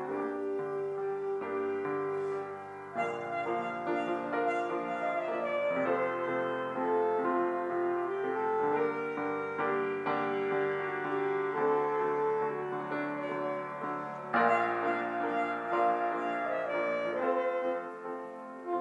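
Slow instrumental music on keyboard: held chords under a melody, the notes changing every second or two.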